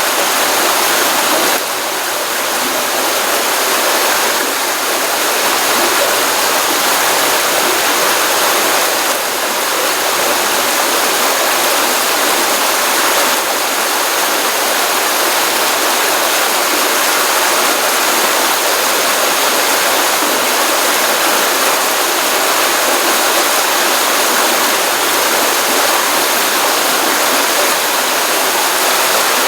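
Stream water running, a steady continuous rushing with no breaks.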